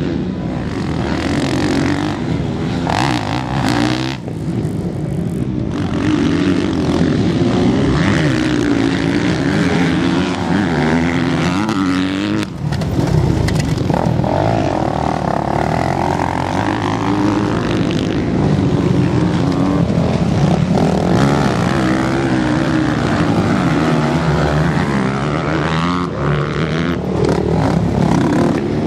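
Motocross bike engines racing past, revving up and down through the corners, their pitch rising and falling with the throttle.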